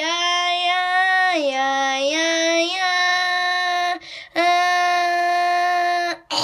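A child's voice singing long held notes without words. The pitch steps down about a second and a half in and comes back up, there is a brief break about four seconds in, then another long held note.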